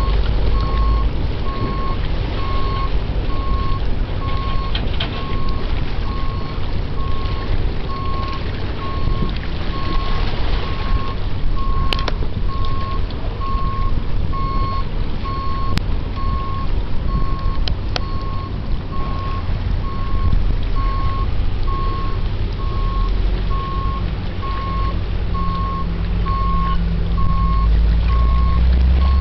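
Steady electronic beeping, one tone evenly repeated like a reversing alarm, over a low rumble that grows louder near the end.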